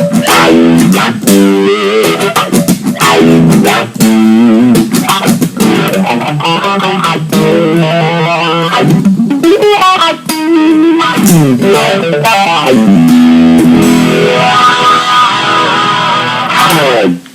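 Electric guitar played through an 18-volt Dunlop Cry Baby 535Q wah pedal, set to its first range mode, and an MI Audio Blue Boy overdrive. The wah sweeps the overdriven tone up and down as the notes ring, and the playing stops abruptly near the end.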